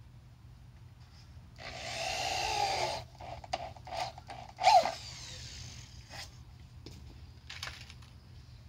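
Electric drill driving a screw into wooden slats. The motor runs for about a second and a half, its pitch sagging under load, then gives a few short trigger bursts, the last and loudest about halfway through.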